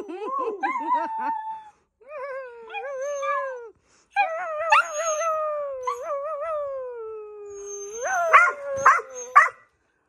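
Dog howling: long wavering calls that rise and fall in pitch, with short pauses between them, ending in a few short sharp cries about eight seconds in.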